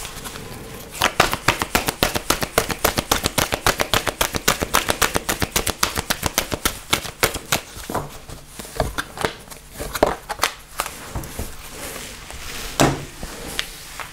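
Angel oracle cards being shuffled by hand: a rapid run of card snaps, about eight a second, that thins out into scattered slaps, then a few separate taps near the end as cards are laid on the table.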